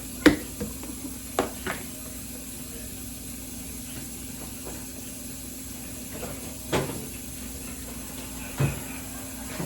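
Five short, sharp knocks and clacks of kitchen things being handled, the loudest near the start, over a steady low hum.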